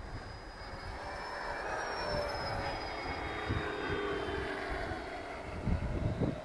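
Twin 80 mm electric ducted fans of a radio-controlled Freewing A-10 Warthog jet whining past in a flyby. The high whine climbs slightly and then slides down in pitch as the jet passes. Wind buffets the microphone near the end.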